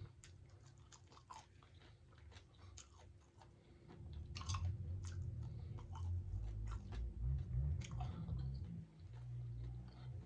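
Close-up chewing and crunching of hard-fried bone-in pinfish, crisp crackles of the fried crust between the teeth. The crunching is sparse at first and grows louder and denser about four seconds in.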